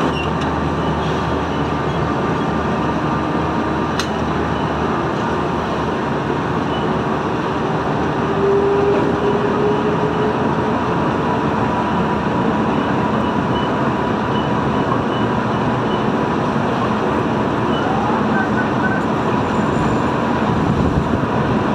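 Heavy machinery engine running steadily during sand unloading, with a brief higher tone around nine seconds in.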